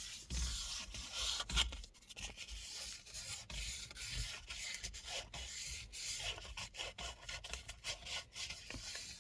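Sandpaper rubbing over worn leather on a car steering wheel, in repeated uneven strokes, as the surface is sanded back by hand.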